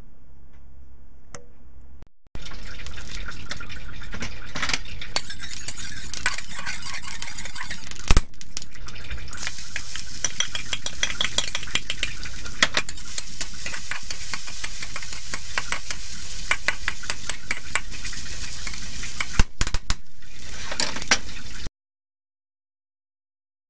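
Diced potato sizzling in hot oil in a steel wok, stir-fried with a metal spatula that scrapes and clicks against the wok, with one loud clank about eight seconds in. The frying starts about two seconds in and cuts off suddenly near the end.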